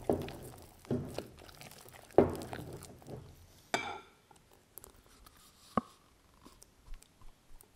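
Wire whisk stirring thick muffin batter in a glass bowl: wet, squelchy strokes, with the whisk knocking against the glass. A few louder strokes come in the first four seconds, one with a brief ring, then softer scattered clicks.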